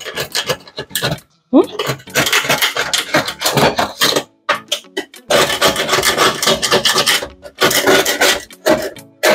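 Hard scrubbing of a sufuria (cooking pot) to get stuck-on residue off, a rapid rasping scrape in spells with short pauses.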